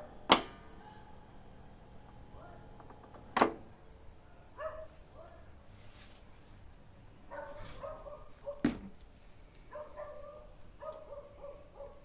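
Three sharp clicks spread a few seconds apart, with groups of short barks between and after them.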